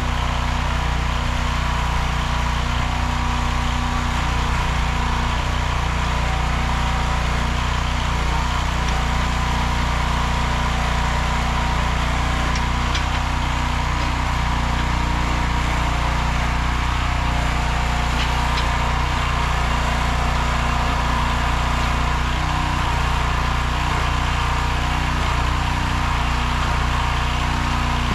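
The 15 hp engine of a Nortrac towable backhoe running steadily at an even speed.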